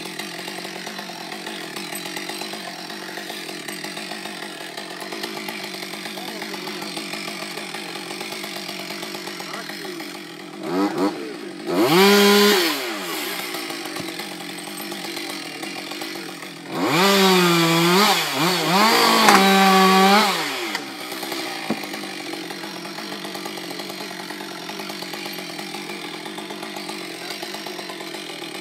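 Chainsaw running at idle, revved up hard twice: once for a couple of seconds about ten seconds in, and again for about four seconds past the middle. Each time the pitch climbs, holds high and drops back to idle.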